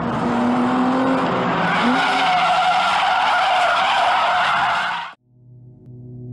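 A car skidding, its tyres squealing over engine noise, cut off abruptly about five seconds in. Low, sustained droning music then fades in.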